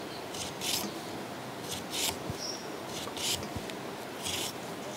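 Raw cucumber being sliced into thin slivers against a curved iron blade: a string of short, crisp cutting rasps, roughly one or two a second at irregular intervals.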